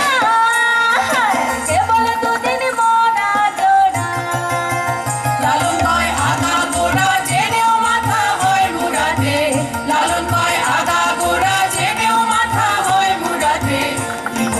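Bengali folk music played live for a dance: a sliding, ornamented melody over a hand-drum beat that comes in about four seconds in.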